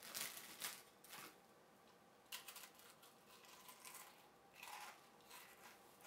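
Faint crunching of crackers being eaten, in short irregular bursts.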